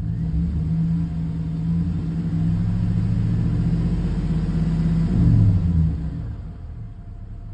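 2003 Chevrolet Silverado's 5.3-litre V8 running at raised revs, heard from inside the cab, swelling loudest about five seconds in and dropping back toward idle about a second later. The engine is holding oil pressure around 40 after its oil pickup tube O-ring was replaced, the cause of its earlier loss of oil pressure.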